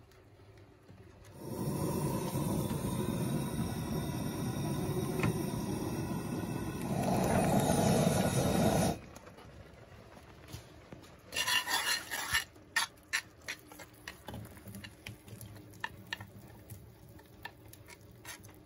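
A loud, steady rushing noise lasts about seven seconds and stops suddenly. It is followed by a quick run of sharp ringing clinks, a cast iron pan and metal spoon against enamel bowls, and then light scraping and tapping as baked beans are spooned out of the pan.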